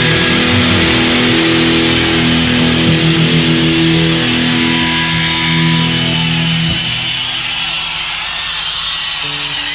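Rock band playing the instrumental ending of a song: long held electric guitar notes over a dense, distorted wash, which drops quieter about seven seconds in before new notes come in near the end.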